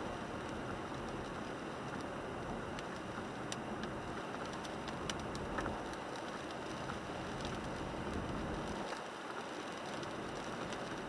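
Rain pattering on the windshield and roof of a 1998 Toyota 4Runner, heard inside the cabin, over steady wet road noise from the tyres. Scattered single drops tick sharply on the glass, and the low rumble eases briefly near the end.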